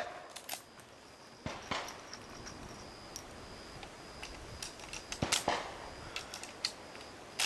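Two rifle shots at a shooting range, well quieter than the shooter's own shot: one about a second and a half in, the other past five seconds. A few short sharp clicks fall between them.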